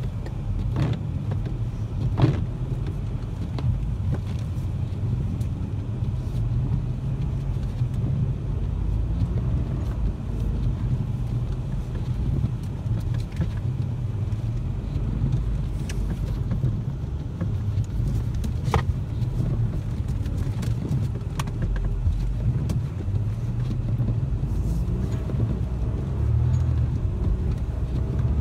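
Inside a car cabin while driving slowly over snow: a steady deep rumble of engine and tyres, with a few sharp clicks and knocks now and then.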